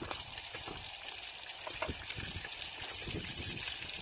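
Bacon sizzling in a frying pan with a steady hiss, with a few sharp clicks of metal tongs against the pan as the rashers are turned.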